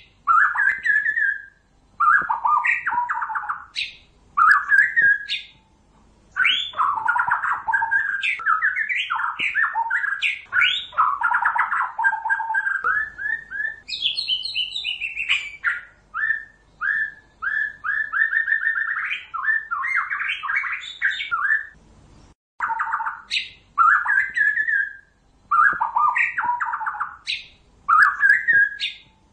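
White-rumped shama singing: phrases of quick, varied notes, each a second or a few seconds long and separated by short pauses. This is recorded song played as a lure for trapping the bird.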